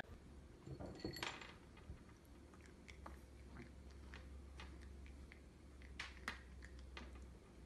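Cat chewing dry kibble: faint, irregular crunching clicks over a low steady hum.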